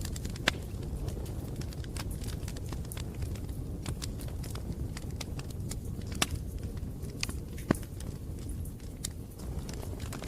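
Bonfire crackling: irregular sharp pops and snaps from the burning wood over a steady low rumble of the flames.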